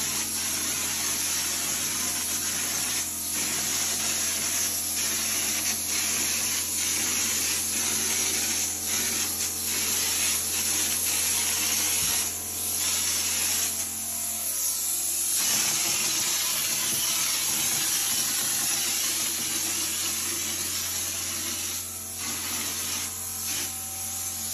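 Drywall hopper gun spraying orange-peel texture mud: a steady, loud hiss of compressed air atomising the mud, dipping briefly every second or two, over a low steady hum.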